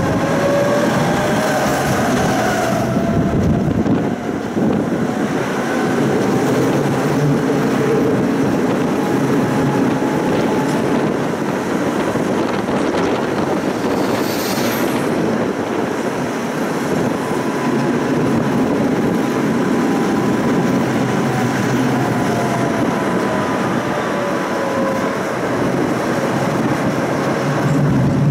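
Electric tram running on its rails, heard from on board: a steady rumble of wheels and running gear. A whine rises in pitch over the first few seconds, and a brief high squeal comes about halfway through.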